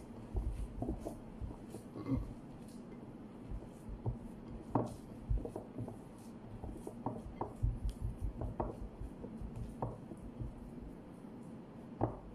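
Hands kneading and squishing a minced-meat kofta mixture in a plastic container, with irregular soft thumps and knocks of the container against the counter, over a steady low hum.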